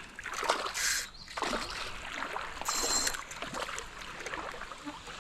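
Shallow creek water running and trickling, with two brief splashy rushes, about a second in and about three seconds in.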